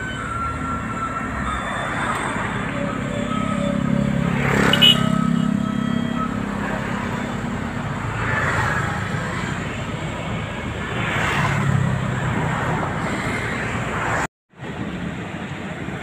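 Street traffic: cars and motorcycles passing close by one after another over a steady engine rumble. The sound breaks off for a moment near the end, then the traffic resumes.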